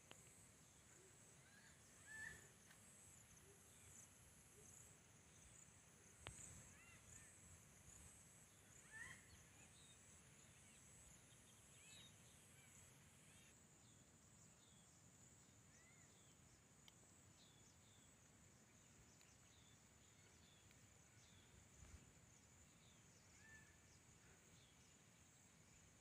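Faint outdoor ambience: a steady high-pitched insect drone with scattered short bird chirps, a few of them a little louder in the first ten seconds.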